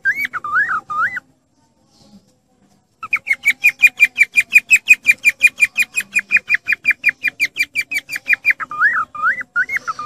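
Cockatiel whistling. A warbling up-and-down phrase gives way to a pause of about two seconds, then a fast, even run of short repeated whistled notes, about seven a second, for over five seconds. The warbling phrase returns near the end.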